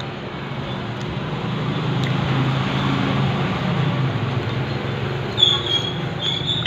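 A motor vehicle passing on the road: a low engine drone and road noise that swell to a peak midway and then fade, with a brief high-pitched squeal near the end.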